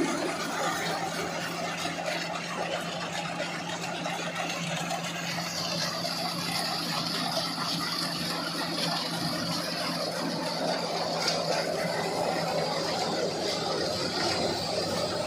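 Engine of an Iseki rice harvester running steadily, with a higher whine joining about five and a half seconds in.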